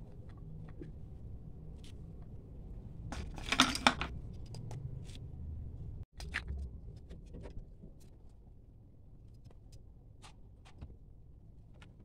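Light clicks and knocks of plastic PVC pipe fittings being handled and set down on a cloth-covered table, with a louder clatter about three and a half seconds in, over a low steady room rumble.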